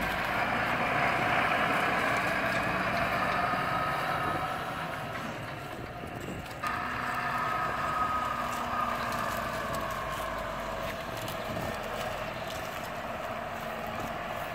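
Massey Ferguson tractor diesel engines running steadily in the field, with an abrupt change in the sound about six and a half seconds in.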